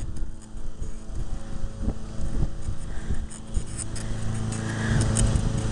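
Bicycle rolling along a concrete street with wind on the microphone: a steady low rumble with a few light knocks from the bike.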